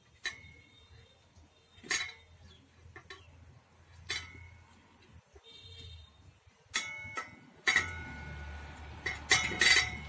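A steel plate and an enamel bowl clinking as peeled boiled quail eggs are moved by hand from the plate into the bowl. The sharp clinks each carry a short metallic ring; they come a second or two apart, then several close together near the end.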